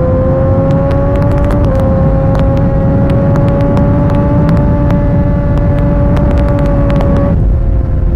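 Sport motorcycle engine running hard at steady high revs, its note climbing slowly and dipping briefly about two seconds in and again near the end, over heavy wind rumble on an onboard microphone with scattered clicks.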